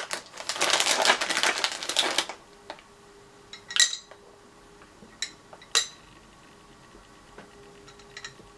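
Crinkling plastic for about two seconds, then quiet handling with a few light, ringing clinks against a glass jar.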